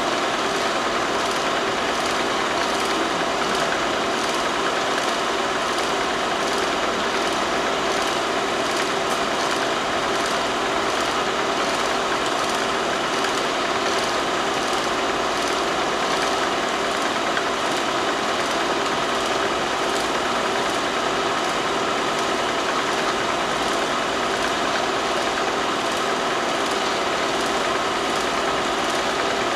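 Steady mechanical running noise with hiss and a faint regular ticking about twice a second, typical of a film projector's motor and mechanism running while the silent footage plays.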